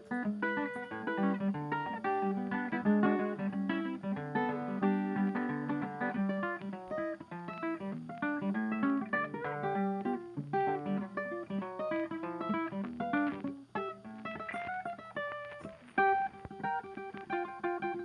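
Acoustic guitar music: a run of many quick plucked notes and strums.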